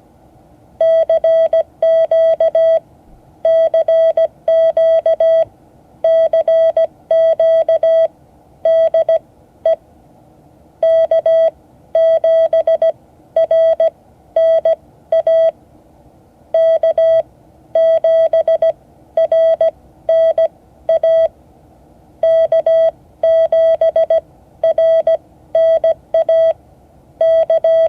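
Morse code tone at one steady pitch, keyed in dots and dashes, sending a 3x3 CQ: CQ three times, then the sender's call sign three times. This is a general call inviting any station to answer.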